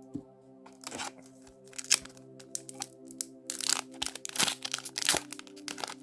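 Foil booster pack wrapper of a Yu-Gi-Oh card pack crinkling and tearing open in irregular crackles, over soft background music with steady held tones.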